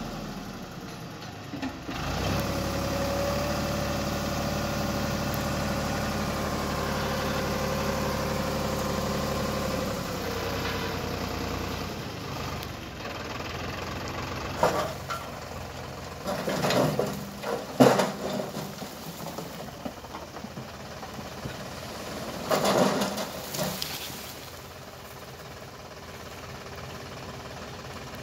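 Sonalika 55 hp tractor engine running under hydraulic load as it tips a loaded trolley, steady and louder for the first several seconds, then easing off. Loud irregular clattering comes twice in the second half, and the engine settles to a lower idle near the end.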